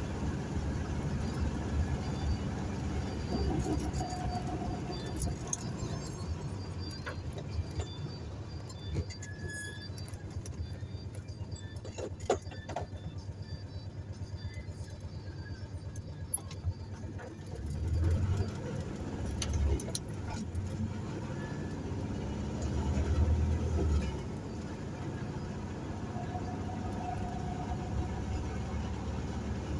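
Vehicle driving along a city street: a steady low rumble of engine and road noise, with light rattling clicks through the middle. Twice in the second half the low rumble swells louder for a moment.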